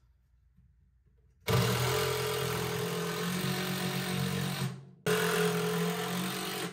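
DEWALT 20V cordless impact driver driving screws: a steady rattling run of about three seconds starting about a second and a half in and winding down, then a second run after a brief pause.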